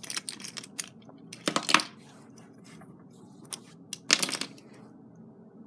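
Small plastic Lego pieces clattering and rattling as they are handled, in a few short bursts, the loudest about one and a half seconds in and about four seconds in.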